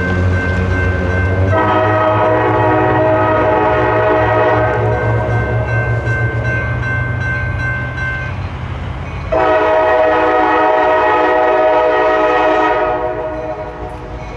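A diesel locomotive's air horn blowing two long blasts about a second apart as the train approaches, over a low rumble.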